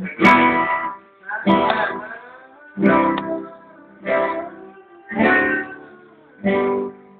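Acoustic guitar strummed one chord at a time, six chords about every second and a quarter, each struck sharply and left to ring and fade before the next.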